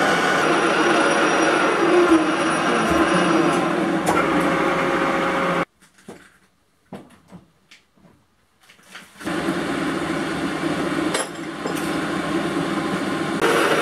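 Metal lathe running while a twist drill bores into a steel pulley, a steady mechanical noise with a few held tones. About halfway through the machine noise stops abruptly, leaving near silence with a few light metal clinks. Then the steady lathe noise starts again.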